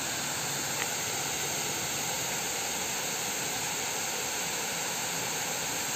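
Steady, even hiss with no change in level, and a single faint tick just under a second in.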